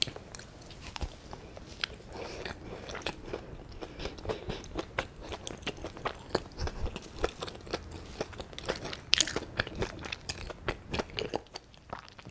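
Close-miked biting and chewing of soboro bread, a soft milk loaf with a crisp streusel topping: steady chewing with many small crackles and crunches from the topping.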